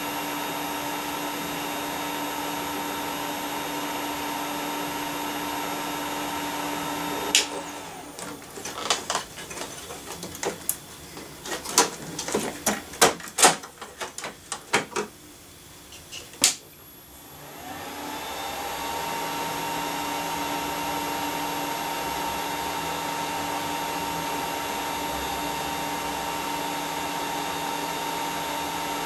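Computer server's cooling fans running with a steady whirring hum. About seven seconds in a sharp click cuts them off, followed by several seconds of scattered clicks and knocks. Another click comes about sixteen seconds in, and the fans spin back up to the same steady whir.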